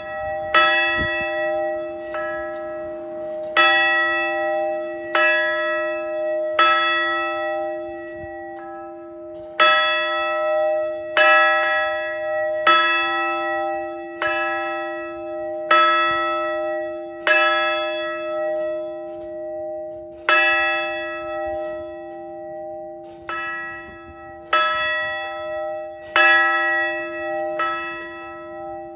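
A large bell struck over and over, about one stroke every second and a half, each stroke ringing on under the next, some struck more lightly than others. It is rung once for each new graduate.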